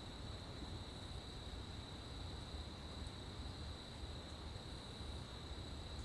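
Steady chorus of night insects, crickets, trilling in one unbroken high band, with a faint uneven low rumble underneath.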